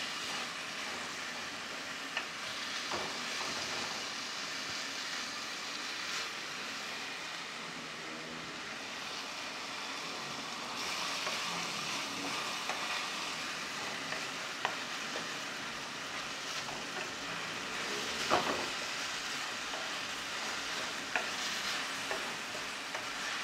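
Sliced longaniza sausage sizzling steadily in hot oil and seasoning in an aluminium caldero, as a wooden spoon stirs it. A few sharp knocks come from the spoon striking the pot, the loudest about three-quarters of the way in.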